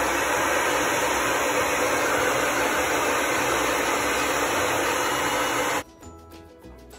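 Hair dryer blowing a steady rush of air at close range onto a fluffy dog. It cuts off abruptly about six seconds in, giving way to quieter background music.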